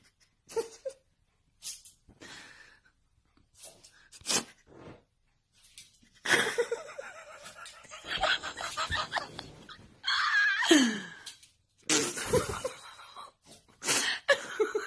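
A person laughing in short bursts and breaths, turning louder and more continuous about six seconds in, with a falling cry a little before eleven seconds.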